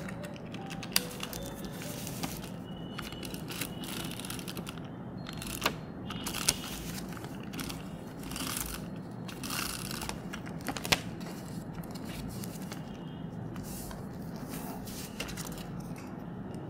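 Paper handling: an envelope being folded and pressed flat, with paper rustling and crinkling and a few sharp clicks and taps. A scratchier stretch comes around the middle as a small handheld roller tool is run along the envelope paper.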